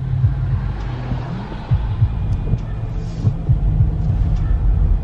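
Car driving, heard inside the cabin: a steady low road rumble with irregular low thumps.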